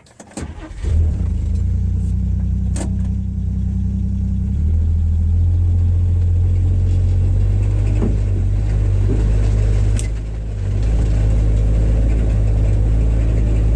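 A 1962 Rambler Classic's six-cylinder engine starts about half a second in and runs with a steady, loud low rumble. It grows louder a few seconds in and eases briefly near the end before picking up again.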